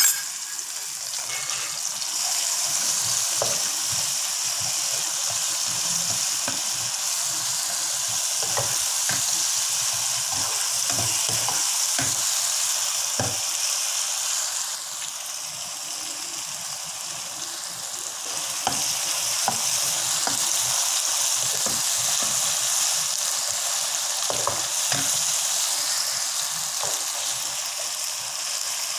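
Ginger-garlic paste, onions and tomato sizzling in hot oil in a pan, with a spatula scraping and tapping against the pan as the masala is stirred. The sizzle eases for a few seconds around the middle, then picks up again.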